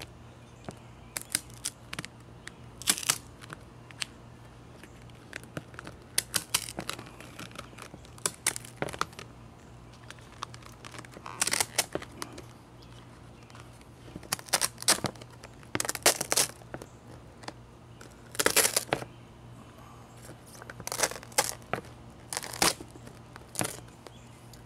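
Cured fiberglass skin of mat and cloth being peeled off the surface it was laid up on. It comes away in irregular crackling, tearing bursts as the resin-set layers separate, with a low steady hum underneath.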